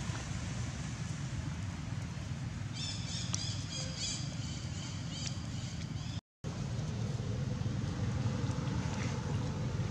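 Steady low outdoor rumble, with a run of short high-pitched chirping calls from about three to five seconds in. The sound cuts out completely for a moment just after six seconds.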